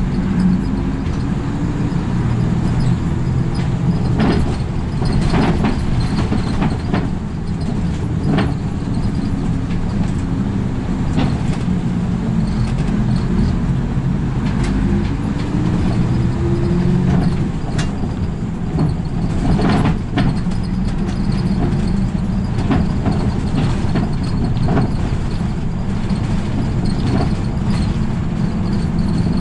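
Route bus driving along, heard from inside the cabin at the front: engine running steadily with road noise, its pitch rising for a couple of seconds midway as it picks up speed. Occasional short rattles and knocks come from the bus, the loudest about 20 seconds in.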